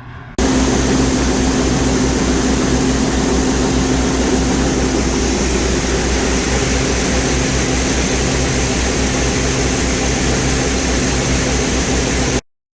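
Heavy diesel farm machinery running steadily under load, with a deep engine drone and a constant mechanical hum over a wide hiss. It starts and stops abruptly.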